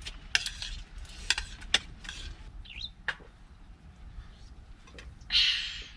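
A metal spoon clinking and scraping on a ceramic plate during a meal, with a few sharp clinks in the first two seconds. A short hissy rustle comes near the end.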